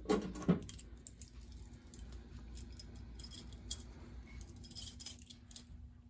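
A bunch of keys jingling in several short bursts as they are handled, among them the key used to reset a fire alarm pull station. A faint steady hum runs underneath.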